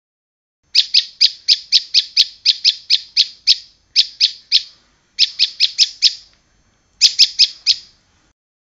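Prinia (prenjak) calling: a loud, sharp note repeated about four times a second in four runs with short pauses between them. About a dozen notes, then three, then five, then four.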